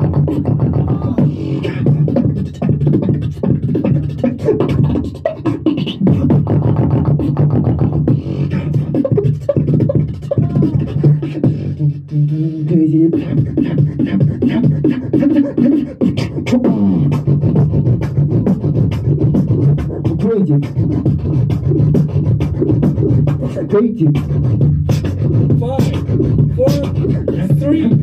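Beatboxing into a handheld microphone over a PA: a held deep bass tone under rapid, dense drum-like clicks and snares, with short sliding pitched sounds. The bass drops out for brief moments about twelve, twenty and twenty-four seconds in.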